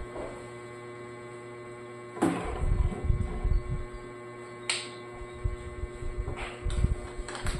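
Bottles and kitchen items being handled and set down on a counter and shelf, giving a few sharp knocks and clinks, one about two seconds in, one near the middle and several near the end, over a steady electrical hum.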